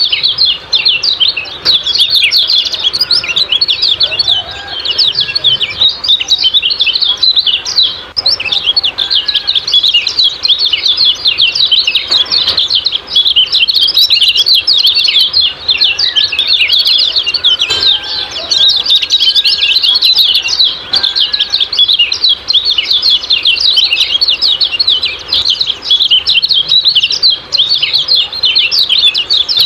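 Common iora (kecial kuning) giving a dense, rapid, unbroken stream of high 'ciak-ciak' chirps, with a few lower whistled notes now and then.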